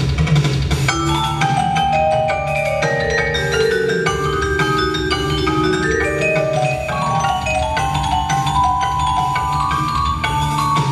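A vibraphone playing the melody in long ringing notes, over a software-played synth marimba and drum kit backing track with a steady beat.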